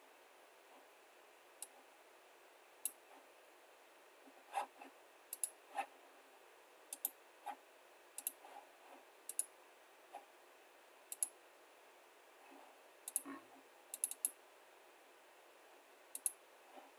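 Computer mouse clicking at irregular intervals, about twenty short sharp clicks, some in quick pairs like double-clicks, over a faint steady hiss.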